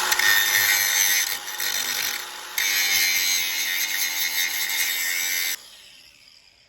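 Power tool with a grinding disc, grinding the top off a snapped steel bolt. The grinding eases briefly about two seconds in, then stops near the end and fades away.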